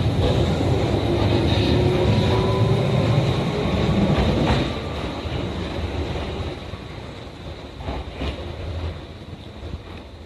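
Tokyu 8500-series electric train pulling out of the platform: a loud low rumble of wheels and running gear with a faint slowly rising whine, dropping off after about four and a half seconds as the last car passes, then fading with a few clacks as it runs away down the track.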